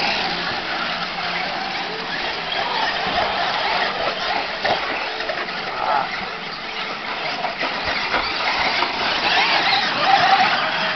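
Several radio-controlled monster trucks racing on a dirt track, their small motors whining and revving up and down as they run the course.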